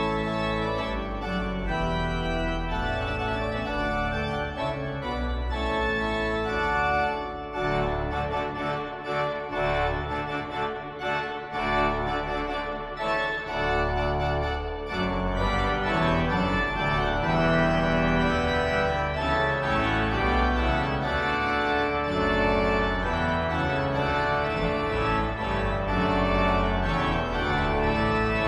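Church organ playing a closing voluntary: held chords that change every few seconds over deep bass notes.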